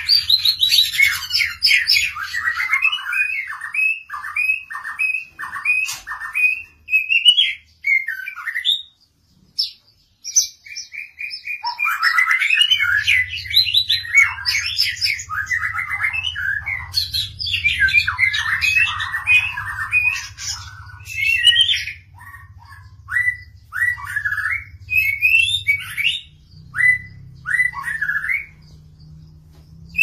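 White-rumped shama singing: fast runs of repeated notes, then rapid varied warbling phrases after a pause of a few seconds, ending in short separate rising whistles.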